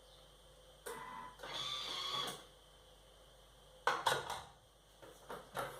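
Thermomix being opened after a short chop: a brief mechanical whir about a second in, then sharp plastic clicks and clatter as the lid is handled, once around four seconds in and again near the end.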